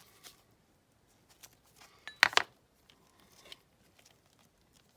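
Masking tape being peeled off a die-cast model car and crumpled, a run of short scratchy crackles with the loudest cluster about two seconds in.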